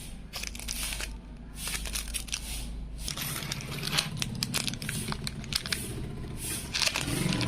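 Crinkling and rustling with scattered sharp clicks, as of plastic packaging and PC parts being handled, over a low hum that grows into a steady drone from about three seconds in.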